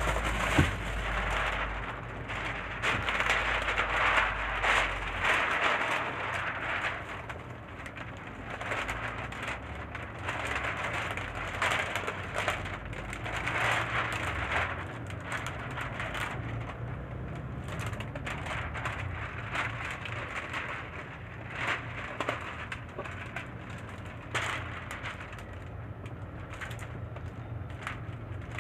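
Window tint film being handled and smoothed against wet car glass: irregular rubbing and scraping strokes with a few clicks, over a low steady hum.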